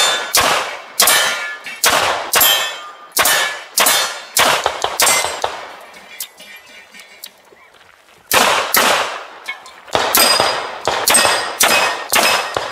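Strings of pistol shots from a Tanfoglio competition handgun, roughly two a second, each hit answered by the ring of struck steel targets. The shooting stops for about two and a half seconds midway while the shooter moves to the next position, then a second string follows.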